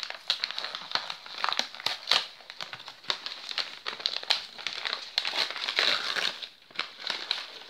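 Christmas-pattern gift wrapping paper crinkling and rustling as it is pulled open by hand, a dense, uneven run of crackles that goes briefly quieter about six and a half seconds in.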